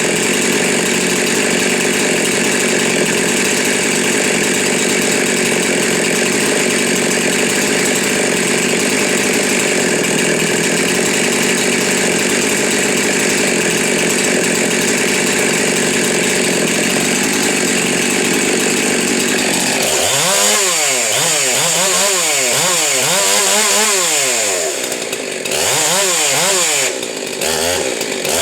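Ported big-block Husqvarna 372 XP two-stroke chainsaw running steadily, then revved up and down over and over, about once a second, for the last several seconds.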